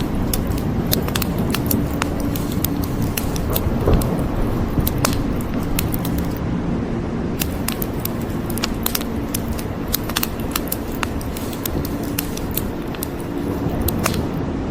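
Wood fire crackling with frequent sharp, irregular pops over a steady rush of rain.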